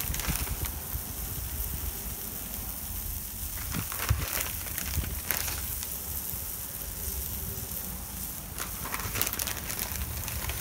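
Breaded chicken cutlets sizzling with a steady hiss and light crackle on a hot Blackstone 36-inch griddle. A few brief rustles come from a plastic bag of shredded mozzarella as the cheese is sprinkled on, about four to five seconds in and again near nine seconds.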